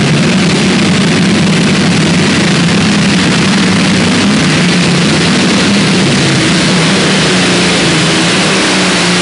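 Light modified pulling tractor's engine run flat out under full load, dragging the weight-transfer sled down the track: a loud, steady, unbroken engine noise.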